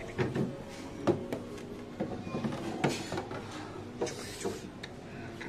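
Freezer compartment door of a small refrigerator opened and a steel pot pulled out, giving a series of light knocks and clunks, about six spread through a few seconds.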